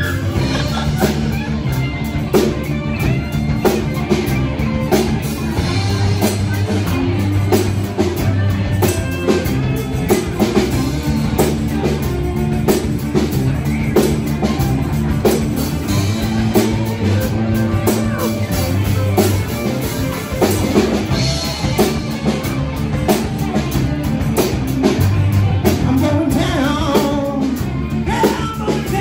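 Live rock band playing: electric guitar, electric bass guitar and drum kit, with a steady beat.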